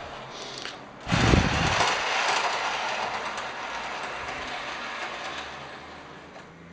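H0-scale Märklin model train rolling around a helix on track temporarily screwed down to the baseboard, which makes for more noise: a continuous rolling rumble of wheels on rails. It gets suddenly loud about a second in as the train passes close, then fades steadily as it runs away up the helix.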